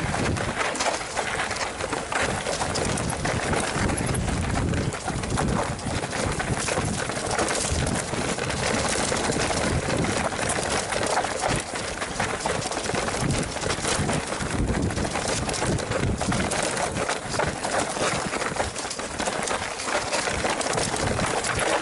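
Mountain bike riding fast down a rough dirt trail: a steady rush of wind and tyres over dirt and stones, with dense rattling and knocking from the bike.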